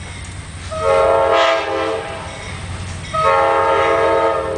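Approaching Amtrak diesel locomotive sounding its multi-chime air horn: two long blasts, each a little over a second, over a steady low rumble from the train.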